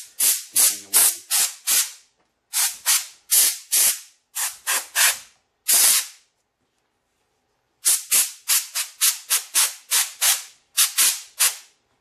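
Compressed air from a shop air compressor's blow gun, fired in short hissing puffs, several a second in quick runs, blowing dust out from between a mechanical keyboard's exposed switches. A pause of nearly two seconds comes just past the middle.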